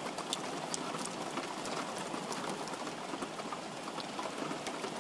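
Heavy rain falling on a tiled roof: a steady hiss of downpour with many small sharp drop ticks.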